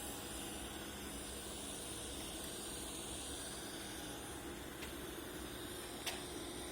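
TIG (argon) welding arc hissing steadily, with a couple of faint clicks near the end.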